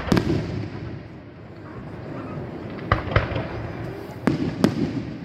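Aerial firework shells bursting overhead: sharp bangs in close pairs, three times, each followed by a low rumbling echo.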